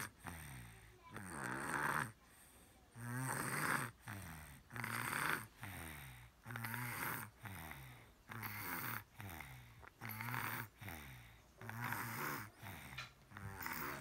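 Baby snoring through an open mouth, a rough buzzing snore on each breath, about one every second and a half.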